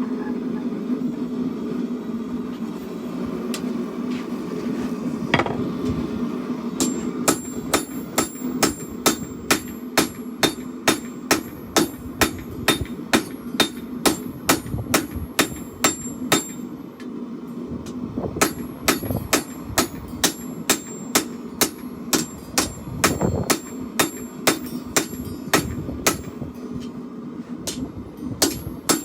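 Hand hammer striking hot steel on an anvil while forging a chopper blade, about two ringing blows a second, starting about seven seconds in with a short break partway through. A steady hum runs underneath.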